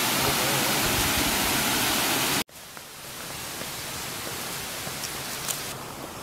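Water pouring over a small river cascade, a steady loud rush that cuts off abruptly about two and a half seconds in. Quieter outdoor ambience follows, with a few faint clicks.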